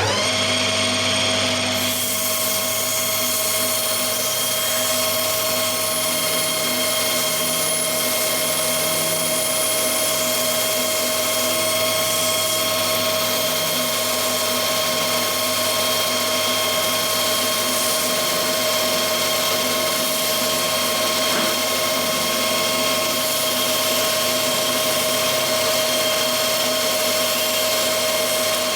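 Machine tool running steadily with a constant whine while taking a light cut of a few hundredths of a millimetre off the drive shaft. It starts abruptly at the beginning.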